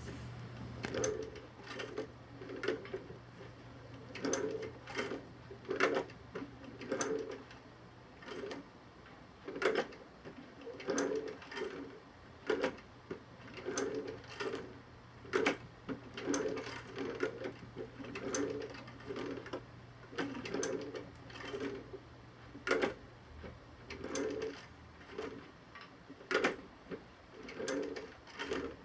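Stitching through the leather of an off-road boot's torn inner lining: irregular short clicks and rasps as the needle and thread go through, about one or two a second, over a faint steady low hum.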